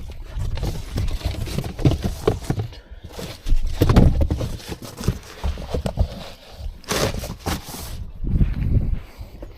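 Irregular knocks, bumps and rustling as bedding and a car seat are shifted around inside a car.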